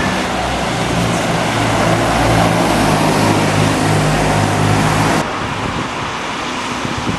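A large road or rail vehicle running close by: a low engine hum over a loud rushing noise. The sound cuts off sharply about five seconds in, leaving quieter traffic noise.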